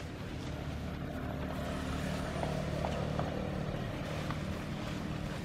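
A steady low engine drone.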